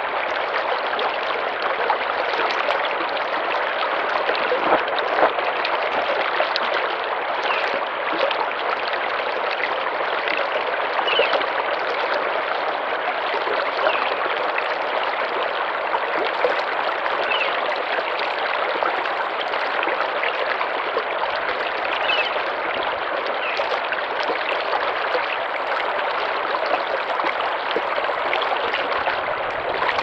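Slow-moving river water flowing steadily, a continuous even rush of water at low summer flow.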